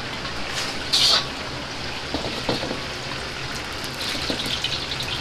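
Gas wok burner running at full flame with hot oil hissing in a carbon-steel wok, a steady rushing hiss. A brief metal clatter about a second in, as the wok and ladle knock.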